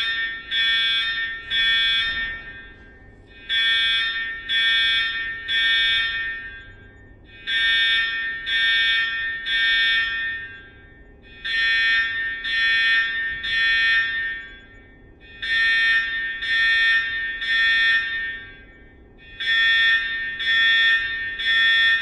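Electronic alarm sounding in groups of three beeps, a new group about every four seconds, each group fading out in a short tail. It follows the three-beep temporal pattern of a fire evacuation alarm.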